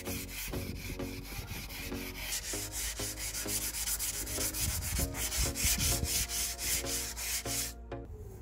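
Hand sanding a fibreglass boat hull with a sanding block, rubbing off old flaking green paint in rapid back-and-forth strokes, about four a second. Many strokes carry a squeak. The sanding stops about eight seconds in.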